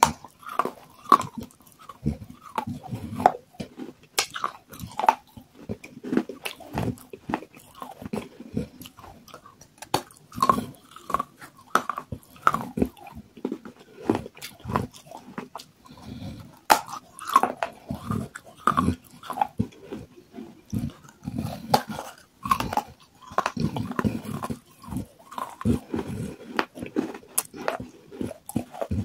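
A person biting pieces off a terracotta clay pot and chewing them close to the microphone: an irregular run of sharp cracks, with gritty grinding between them.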